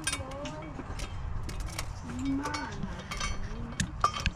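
Hand tools and bolts clinking against metal engine parts: a scattered string of light metallic clinks and ticks, with a sharper knock near the end.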